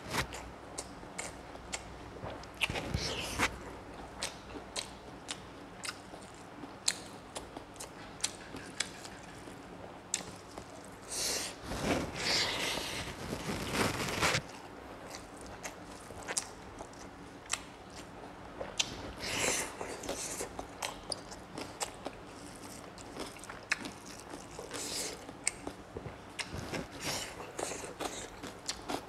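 Close-miked eating of rice and pork by hand: chewing with many small wet mouth clicks and smacks, and a few longer, louder stretches of chewing.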